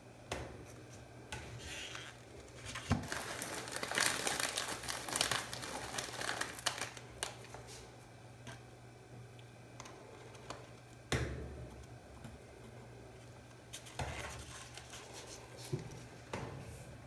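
Crinkling and rustling handling noise with scattered clicks as gloved hands work with a paper ice cream cup and its toppings, busiest in the first half, then a few sharp knocks later on, over a steady low hum.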